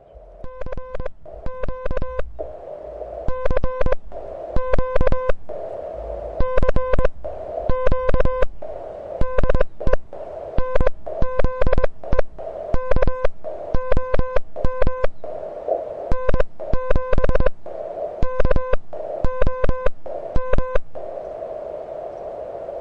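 Morse code (CW) from a QRP HF transceiver, most likely an LNR Mountain Topper MTR-4B: a tone near 500 Hz keyed on and off in quick groups of dots and dashes, over the hiss of the receiver's narrow CW filter. The keying stops near the end, leaving only the hiss.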